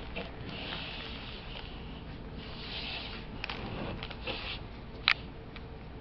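Plastic zip-top bag rustling and crinkling in short patches as it is handled, with one sharp click about five seconds in.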